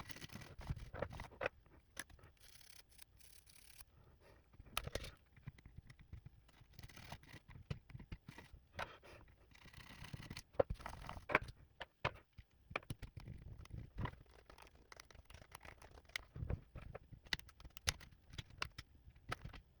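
Irregular sharp clicks and short scratchy scraping from hands-on cleaning of a 2015 12-inch MacBook's butterfly keyboard, whose keys are stuck.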